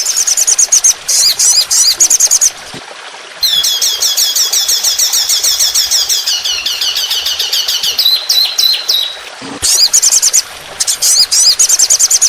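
Songbird singing fast runs of high, rapidly repeated chirps and downward-slurred notes, the rapid-fire 'tembakan' phrases of masteran tutor song for training captive songbirds, with a couple of short breaks.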